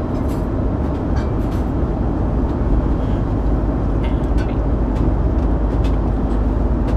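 Steady low cabin noise of an airliner, with a few light rustles of a cloth napkin being unfolded and tucked in.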